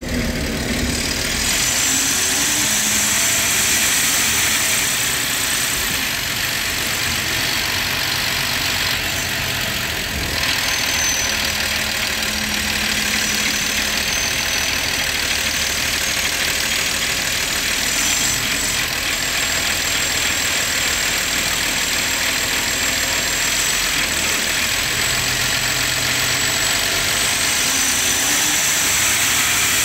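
Diesel engine of a NovaBus LFS articulated bus, a Cummins L9, running steadily, with a thin high whine that slowly rises and falls in pitch.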